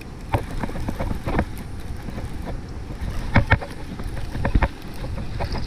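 Handling noise in a small fishing boat: irregular knocks and clicks from the rod, baitcasting reel and boat, the loudest a pair about three and a half seconds in and another about a second later, over a steady low rush of wind on the microphone.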